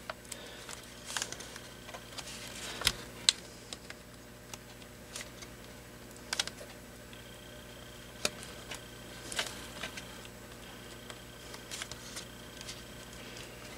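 Irregular light clicks and taps of plastic parts being handled as a replacement laptop LCD panel and its cable connector are fitted, over a faint steady hum.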